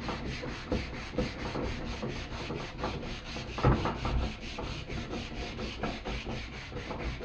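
Abrasive being rubbed by hand over an old vise being refinished: a steady scratchy rubbing, with a few louder knocks, the strongest a little over halfway through.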